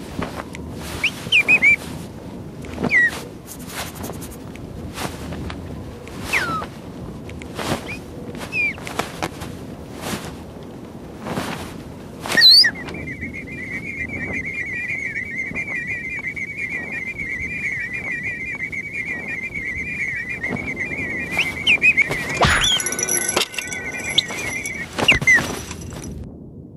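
Cartoon sound effects: a string of knocks and thunks, many with a short squeaky whistle glide. About halfway through, a long wavering whistle comes in and holds for about twelve seconds. Another flurry of knocks and squeaks comes near the end.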